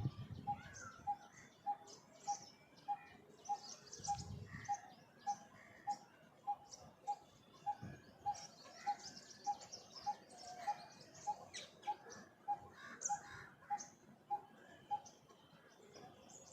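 Coppersmith barbet calling: a steady, evenly spaced series of single low notes, a little under two a second, that stops near the end, with other birds chirping higher in the background.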